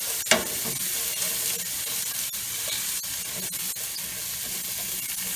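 Sliced onions sizzling in a hot sauté pan as they are stirred and scraped across the pan bottom to lift the browned bits left from searing steak. Small utensil clicks run through it, with one sharper click about a third of a second in.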